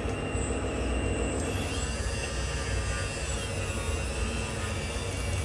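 Electric motors and hydraulic pump of a radio-controlled construction model whining over a low rumble, the whine shifting up and down in pitch from about a second and a half in as the machine works.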